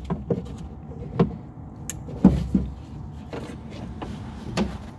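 Handling noise of a car window regulator being worked into the door: irregular light knocks and clicks of the regulator, its cables and plug against the metal inner door panel, about half a dozen over a few seconds, with one short sharp click near the middle.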